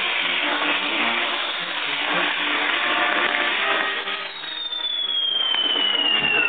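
Fireworks on a Mexican castillo pyrotechnic tower burning, giving a dense sizzling, crackling hiss. About two-thirds of the way through, a long whistle starts and slowly falls in pitch.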